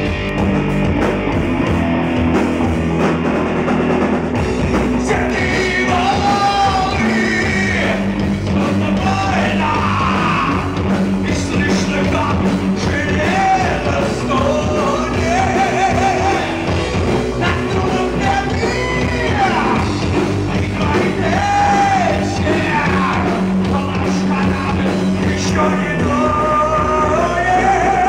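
Live rock band playing: electric guitar, bass guitar and drum kit, with a male lead vocal coming in about five seconds in and singing on over the band.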